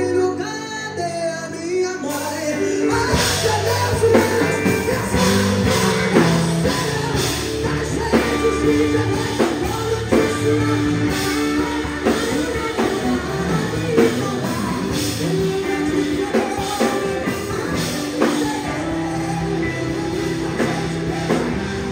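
Live gospel band with keyboards, electric bass, electric guitar and drum kit playing while a man sings into a microphone; the drums and full band come in about two seconds in.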